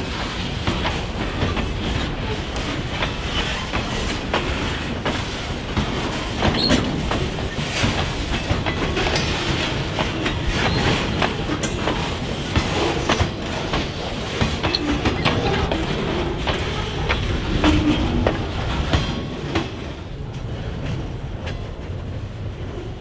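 Freight train rolling over rough jointed track, its wheels clattering over the rail joints with frequent clicks and a few brief wheel squeals. The sound eases off a little near the end.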